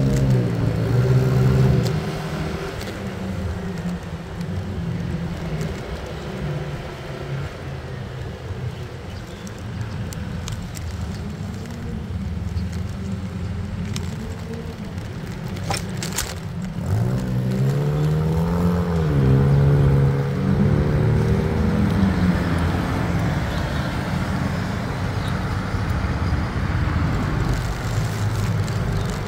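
Motorcycle engine running while riding in traffic, its pitch rising and falling as it speeds up and eases off near the start and again about seventeen seconds in, over steady road and wind rumble. A few sharp knocks come about sixteen seconds in.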